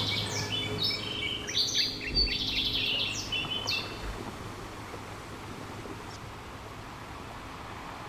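Songbirds chirping in a rapid flurry of short high calls that thin out and stop about four seconds in, leaving a steady soft hiss of background noise.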